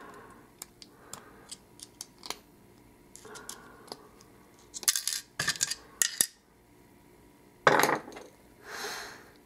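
Small metal clicks and clinks of a euro cylinder lock and tools being handled as the lock is taken apart: a few light ticks, a cluster of sharp clicks around the middle, and a short louder rasp near the end.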